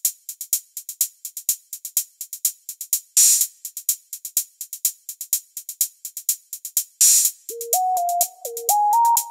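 Electronic background music: a fast, evenly ticking drum-machine hi-hat pattern with two louder cymbal-like swells. A stepping synth melody comes in about three-quarters of the way through.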